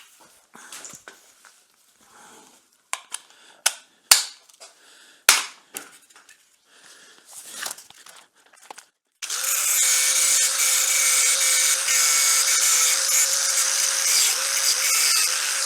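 Scattered knocks and sharp clicks of metal being handled, then about nine seconds in a handheld grinder starts up and runs steadily with a constant whine, cleaning up the brazed joint on the cast iron.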